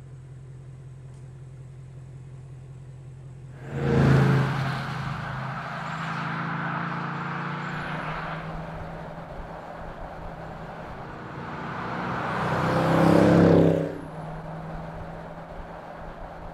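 Bentley Continental GT V8 S's twin-turbo V8 running at a low steady hum, then bursting into loud acceleration about four seconds in and pulling hard for several seconds. It eases off, then swells again to a second loud peak that cuts off sharply about three seconds before the end, leaving the low hum.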